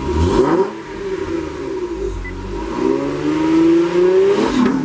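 Car engine revving up and down, its pitch sweeping several times, with one long climb about three seconds in that falls away near the end.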